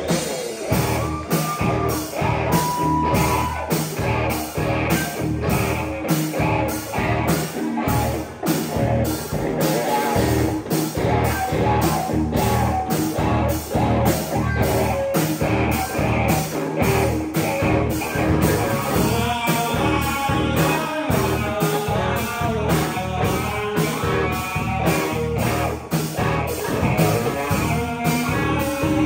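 Live rock band playing: electric guitars and bass over drums keeping a steady beat.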